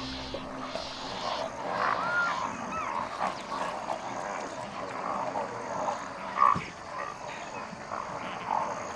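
Many short, overlapping animal calls at a crowded feeding pool, with a single knock about six and a half seconds in.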